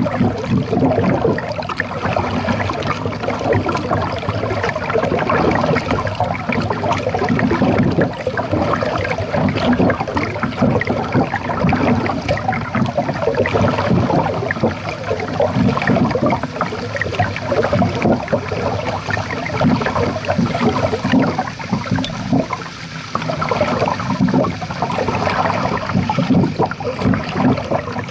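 Water gurgling and sloshing against the bow of a moving kayak, picked up close to the waterline; an uneven, continuous sound.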